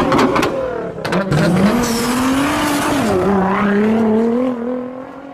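Sports car engine running at high revs, its pitch climbing, dropping about three seconds in, then climbing again before fading near the end, with a few sharp swishing hits in the first second.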